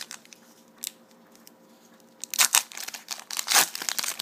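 Foil trading-card pack wrapper crinkling as it is opened, a run of sharp rustles starting about two and a half seconds in after a quiet stretch.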